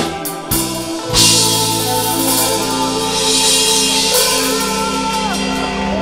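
Pop band music closing a song: a few drum hits, then a loud cymbal crash about a second in and a final chord held for several seconds.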